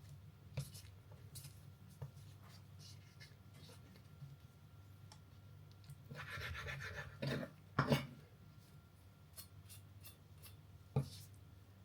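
Fat being cut off raw chicken: quiet scraping and rubbing with scattered small clicks and taps, a louder scratchy stretch about six seconds in, and a few sharper knocks near eight and eleven seconds.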